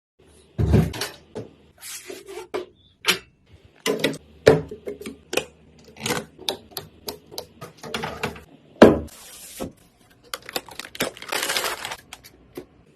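Irregular clicks, knocks and short scrapes of hard computer parts being handled and fitted together during a PC assembly, with a longer rattling scrape near the end.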